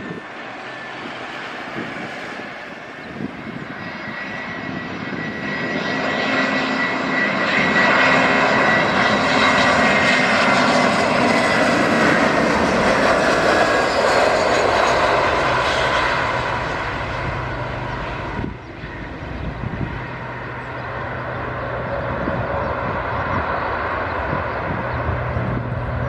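Airbus A320 jet engines on landing approach. The sound builds as the airliner nears and passes, with a high whine that slides slightly down in pitch. About two-thirds through it breaks off suddenly and carries on as a steadier, lower rumble as the aircraft rolls out on the runway.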